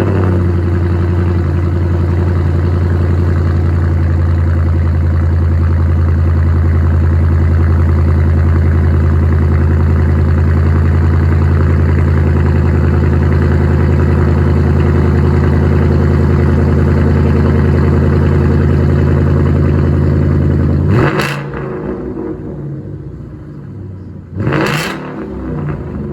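Ford Mustang engine fast-idling steadily just after a cold start. About 21 seconds in, the loud idle drops away suddenly to a quieter rumble broken by a few short louder sounds.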